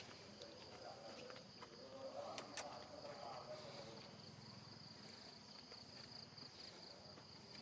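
Faint outdoor ambience: insects chirring in one steady high tone, with a few light clicks and a faint mid-pitched sound about two to three seconds in.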